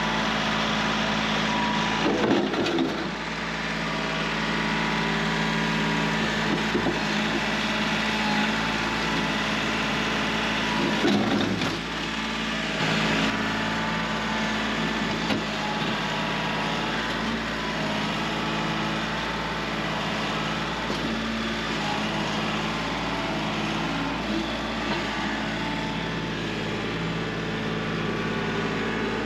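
A machine running steadily with a constant hum, and a few louder knocks about two seconds in and again around eleven and thirteen seconds in.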